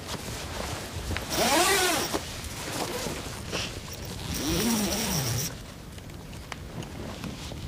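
Nylon tent zipper pulled twice, each pull a rasp whose pitch rises and falls with the speed of the slider.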